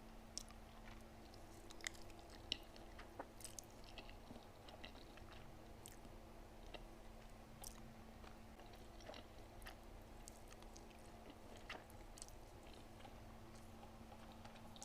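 Faint chewing while eating: scattered small mouth clicks, over a steady low hum.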